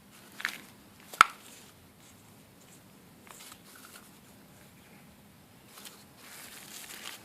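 Packaging being handled while unboxing: a few sharp clicks and knocks, the loudest about a second in, then scattered handling noise and a stretch of rustling near the end.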